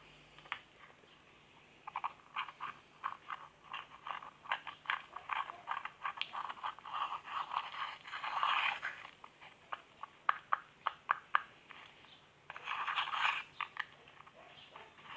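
Slime being squished and stretched by hand, making rapid crackly clicks and pops that start about two seconds in, with a short pause and a denser burst of crackling near the end.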